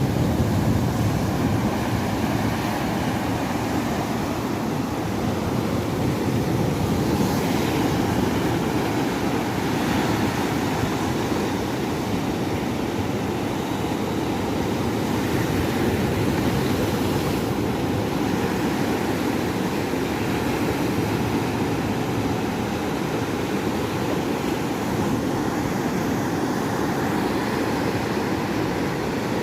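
Steady drone of a boat's engine running, mixed with wind and waves.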